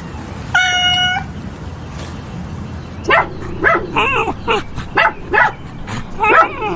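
A dog barking in quick, high yips, about two to three a second, starting about three seconds in. A brief steady tone sounds about half a second in.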